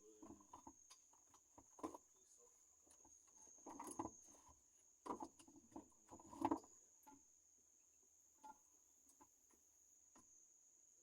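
Faint scattered clicks and light knocks, a few bunched together, from parts being handled while a gear shifter is positioned over its bolt holes. A steady high cricket trill runs underneath.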